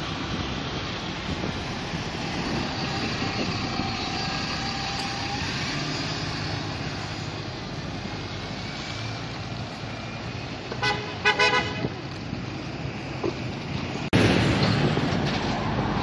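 City-centre traffic, mainly buses running past. About eleven seconds in a horn toots three times in quick succession. Near the end a bus engine runs close by and louder.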